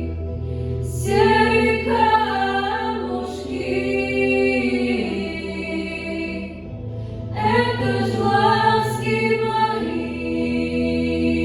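A children's vocal ensemble singing over a backing track of sustained chords: one sung phrase starts about a second in and a second one about seven and a half seconds in.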